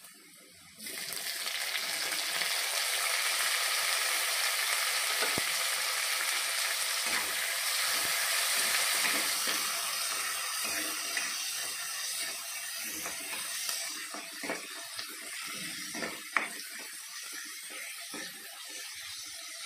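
Cut tomatoes hitting hot oil in a wok of frying onions: a loud, steady sizzle starts suddenly about a second in and eases off in the last few seconds. Near the end come scattered clicks and scrapes of a spatula stirring against the pan.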